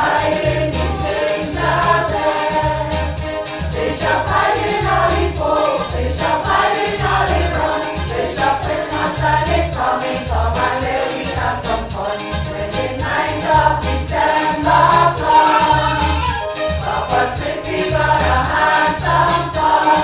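A choir singing over instrumental accompaniment with a steady, regular beat.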